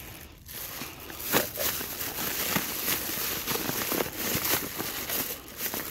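Plastic bags rustling and crinkling as a hand digs into and pulls open a black plastic trash bag beside a woven plastic tote, in irregular crackles.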